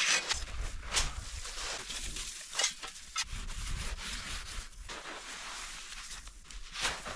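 Snow being scraped and crunched in short, irregular strokes, with wind buffeting the microphone in the first few seconds.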